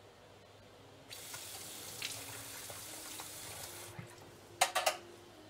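Kitchen tap running for about three seconds, starting a second in and cutting off sharply, followed near the end by three or four quick, sharp knocks.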